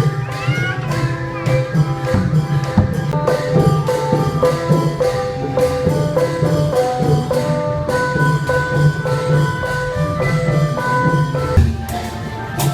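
Music: a melody of struck mallet-percussion notes stepping up and down over a steady percussion beat.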